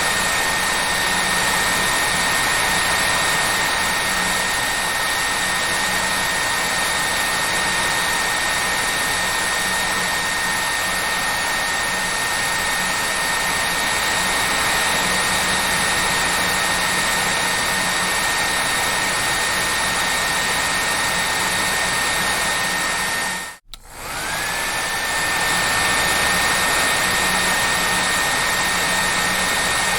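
Hair dryer running steadily, an even rushing noise with a high motor whine. About three-quarters of the way through it cuts out for a split second, and the whine climbs back up to pitch as the motor spins up again.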